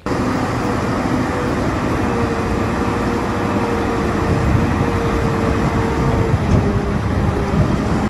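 Caterpillar 992G wheel loader's diesel engine running hard as the loader pushes its bucket into a stockpile, with a steady whine over the engine noise that fades out near the end.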